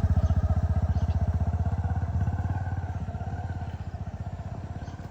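A motor vehicle going away along the road, its engine giving a fast, even pulsing that fades as it goes.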